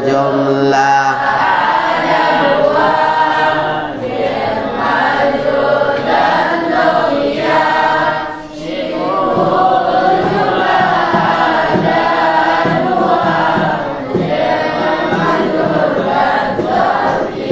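Several voices chanting a rhymed verse on Arabic grammar (a nahwu nadhom) together, in a sing-song melody that runs on with only a brief pause partway through.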